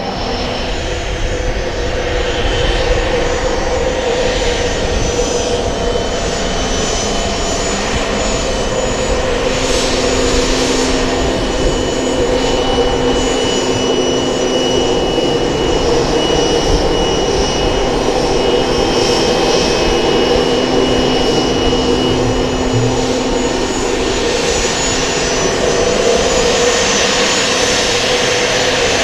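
Cessna Citation Sovereign business jet taxiing, its twin turbofan engines running at low power with a steady whine and several held tones over a broad rush.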